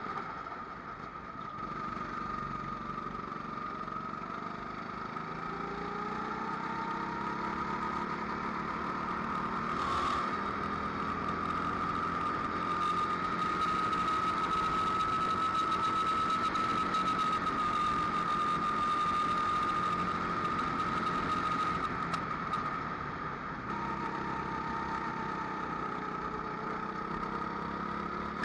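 Rental kart engine running at speed, its pitch slowly rising and falling as it revs, with a brief sharp click about ten seconds in.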